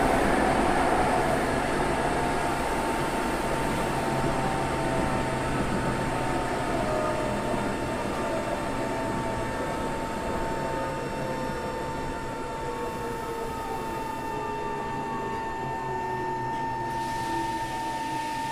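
Tokyo Metro 03 series armature-chopper electric train heard from inside the car as it slows. A steady whine at one fixed pitch holds throughout, while the motor whine falls steadily in pitch as the speed drops.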